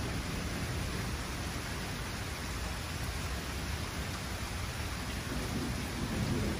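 Steady rain falling on trees and a yard, with a low rumble of thunder swelling near the end.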